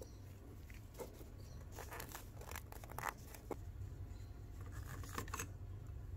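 Small clicks, taps and scrapes of a glass lens dome with a cork gasket being handled and seated into a metal lantern lens ring, with glove rustle, over a steady low hum.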